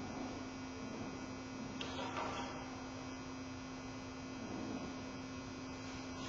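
Steady low electrical hum over a background hiss, with a brief rustle about two seconds in.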